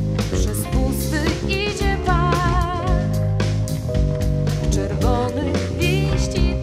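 Live band playing a jazz-pop number with drum kit, bass, keyboards and guitar, steady and full throughout. A lead melody in long, wavering notes comes in twice over the band.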